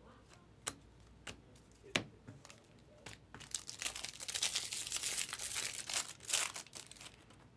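Three sharp clicks as a stack of trading cards is handled. Then, from about three and a half seconds in, the foil wrapper of a Bowman Draft jumbo trading-card pack is torn open and crinkled for about three seconds.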